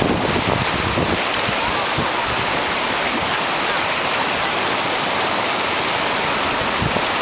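Soča river water flowing, a steady, even rush of water.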